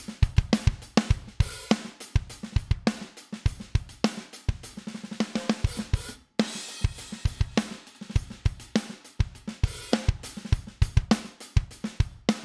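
Acoustic drum kit groove: kick, snare, hi-hats and cymbals in a steady rhythm, run through a bus compressor. Playback cuts out briefly about six seconds in, then the beat resumes.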